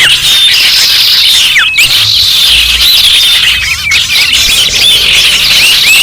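A dense chorus of many kinds of small garden birds chirping and whistling at once: many short, quick notes sweeping up and down, overlapping without a break.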